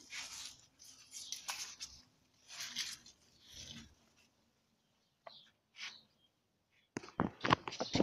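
Footsteps scuffing over dry leaves on paving, about one a second. After a few seconds of near silence, a quick run of sharp clicks and rustles starts near the end.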